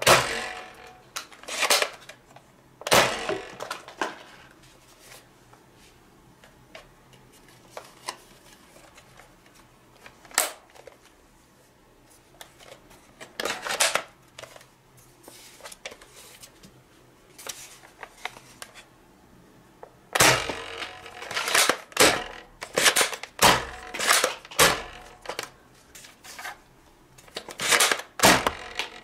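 Nerf foam-dart blaster being loaded, primed and fired: sharp plastic clicks and pops from the priming and the shots, and darts striking the table. A few spaced shots come first, then a quick run of them in the last third.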